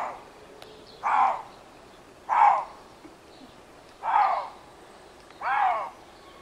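Lynx calling: five short calls about a second and a half apart, each rising and then falling in pitch.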